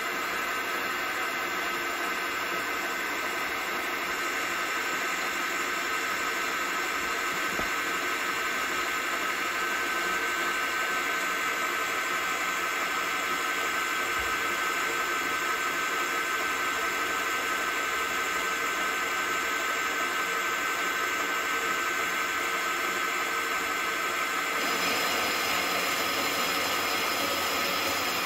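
Epple BS 125 GS metal band saw running with a steady whine, its bi-metal blade cutting dry, without cutting oil, through 15 × 2 mm round iron. The sound turns brighter and hissier about 25 seconds in.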